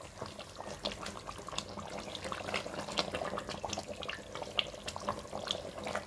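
Thick mutton curry simmering in an open pressure cooker on a lit stove, its bubbles popping and plopping irregularly several times a second.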